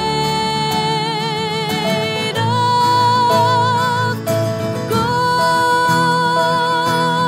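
Music: acoustic guitar accompaniment under a slow melody of long notes, each held a second or two with vibrato.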